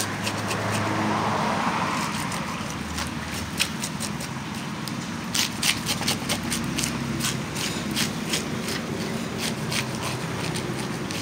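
A knife scraping the scales off a whole fish on a wooden chopping block, in quick, repeated rasping strokes. A steady low hum runs underneath.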